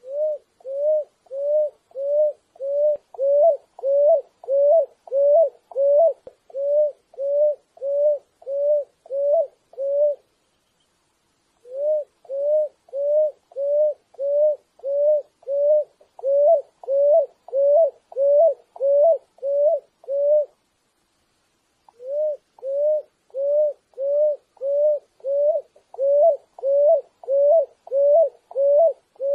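Picui ground dove singing: a steady series of short coos, about two a second, in three long runs with brief pauses between them.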